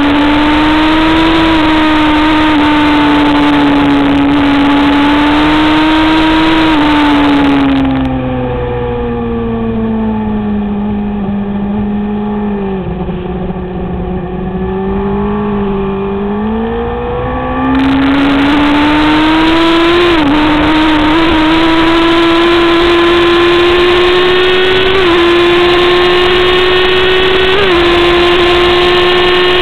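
A sport motorcycle's engine at track speed with wind rushing past. It runs high, drops in pitch for about ten seconds as the throttle is shut for a corner, then climbs again under acceleration with upshifts about 20, 25 and 28 seconds in.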